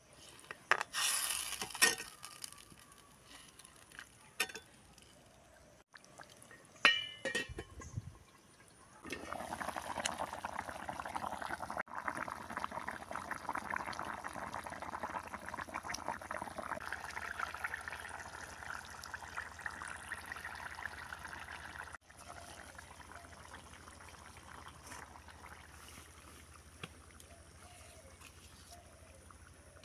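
A few sharp clicks of a steel spoon against the cast-iron kadai, then fish curry boiling in it: a steady, dense bubbling that drops to a fainter bubbling after a cut about two-thirds of the way through.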